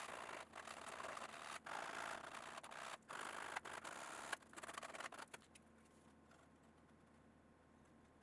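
Hand sanding with a small piece of sandpaper along the edge of a cut opening in thin wood veneer. It gives a faint rough rasp in short back-and-forth strokes that stops about five seconds in.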